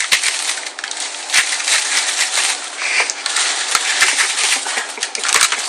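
A brown paper bag crinkling as dozens of small paper sweetener sachets pour out of it and slide onto a pile on a desk: a steady dense rustle with scattered sharp clicks.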